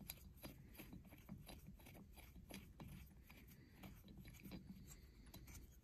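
Faint scraping and clicking of a steel thread-repair tap being turned by hand into the spark plug hole of an aluminum cylinder head.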